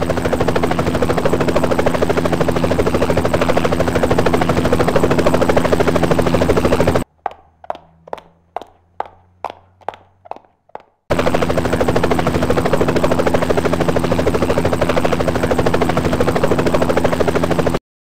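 A rapid machine-gun-like rattle over a steady low drone. Near the middle it breaks into about nine separate shots at a bit over two a second, then the fast rattle resumes and cuts off suddenly near the end.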